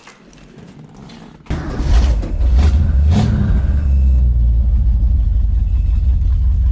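1965 Ford Mustang engine firing up about a second and a half in, then running loud with a brief blip of revs soon after it catches. It has a knock, which the owner takes for a rod knock after the engine was starved of three quarts of oil.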